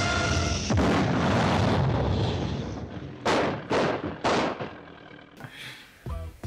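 Cartoon sound effects for a rocket gag: backing music gives way about a second in to a loud blast of noise that fades over about two seconds, followed by three short sharp bursts about half a second apart.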